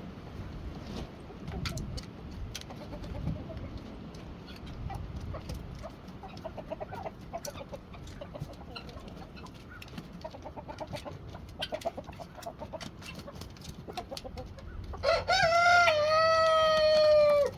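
Chickens clucking softly over wind rumbling on the microphone, then a rooster crows once, loud and drawn out for about two and a half seconds, near the end.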